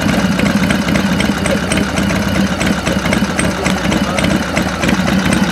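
Harley-Davidson motorcycle's V-twin engine idling steadily as the bike creeps forward at walking pace.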